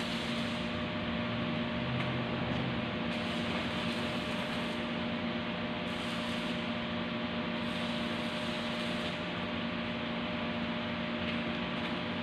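Arc welding on steel beams: the arc's hiss and crackle comes and goes in several short spells of about a second as the welder strikes and breaks the arc, over a steady electrical hum.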